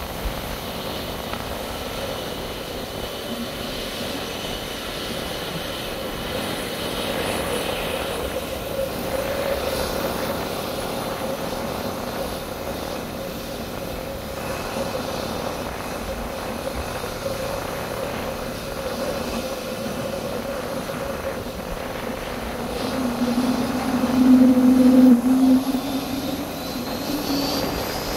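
Twin-engine jet airliner taxiing with its engines at idle, a steady drone. A louder, deeper hum swells in for a few seconds near the end.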